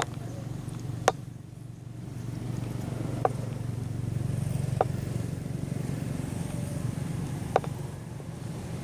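Steady low rumble of a distant engine, with four sharp clicks spread through it, the first and loudest about a second in.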